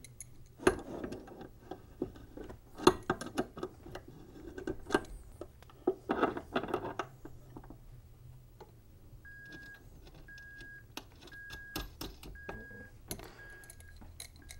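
Small metal valve parts clicking, knocking and scraping as a solenoid valve is reassembled, with several short rattling bursts in the first half. In the second half a high electronic beep repeats about once a second, six times.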